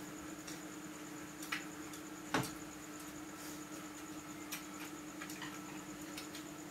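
Scattered light clicks of chopsticks and spoons against porcelain bowls and plates while eating, the loudest a little over two seconds in, over a steady low hum in the room.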